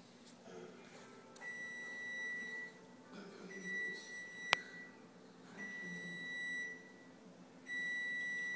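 A high-pitched steady beep sounds four times, each about a second long and about two seconds apart, with a single sharp click about halfway through.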